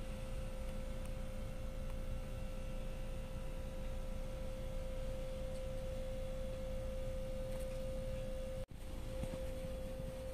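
A steady single-pitched tone, like a pure hum, held over a low rumble. It cuts out for an instant about eight and a half seconds in, then carries on.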